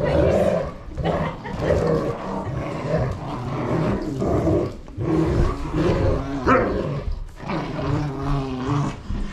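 Dogs growling in repeated spells while tugging on a plush toy: play growling in a game of tug-of-war.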